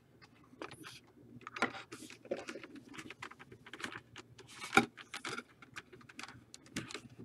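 Faint, scattered rustles and clicks of packaging being handled and opened, with a sharper click about 1.6 s in and again nearer 5 s.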